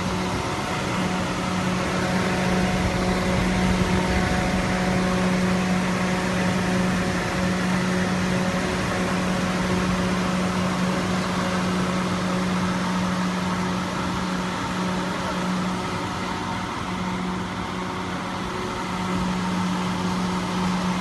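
Bird treat stick forming machine running with a steady electric motor hum and a constant low drone, unbroken throughout.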